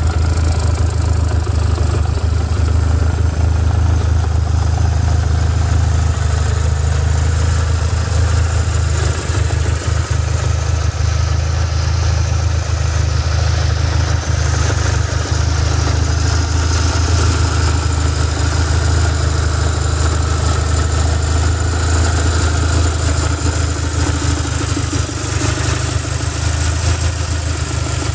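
BMW R1150R's 1130 cc air-and-oil-cooled boxer twin idling steadily.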